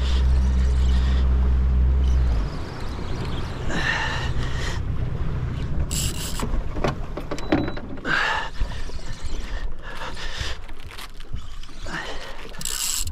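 Bow-mounted electric trolling motor humming steadily, cutting off about two and a half seconds in. After that comes quieter background noise in the boat, with scattered small knocks and handling sounds.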